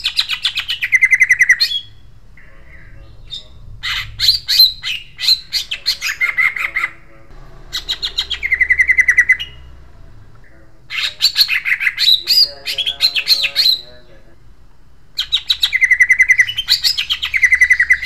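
Greater green leafbird (cucak ijo) singing harsh, sharp phrases. It gives about five bursts of rapid repeated notes, each one to three seconds long, with short pauses between them.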